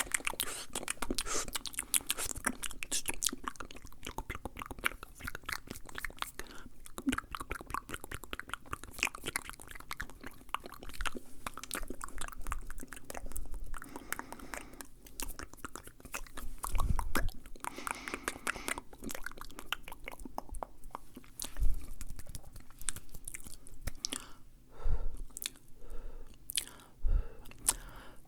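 Fast, wet ASMR mouth sounds close to the microphone: a dense run of rapid clicks and smacks that thins to fewer, separate clicks near the end, with a few dull thumps.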